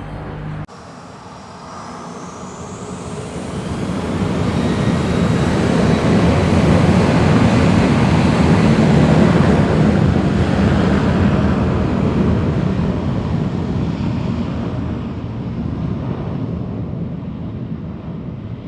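Airplane flying past overhead: its engine noise builds steadily, peaks midway and slowly fades away, with a faint falling whine high up as it approaches. Just before it starts, a different aircraft sound cuts off abruptly.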